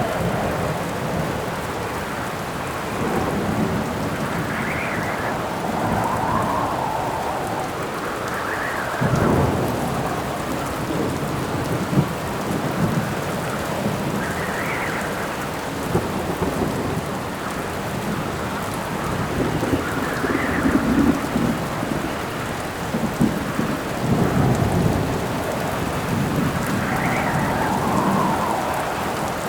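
Storm ambience: steady rain with wind howling in gusts that rise and fall in pitch every few seconds, and low rumbles of thunder swelling under it.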